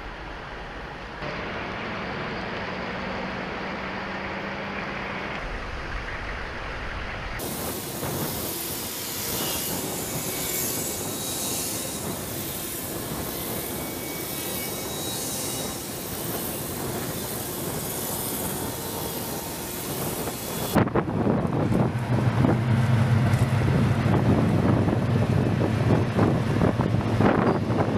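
Military vehicles running: wheeled Humvees and trucks idling and driving past in a convoy, a steady engine and tyre noise. Near the end a tracked M2 Bradley fighting vehicle's engine runs with a strong low drone and clanking tracks, the loudest part.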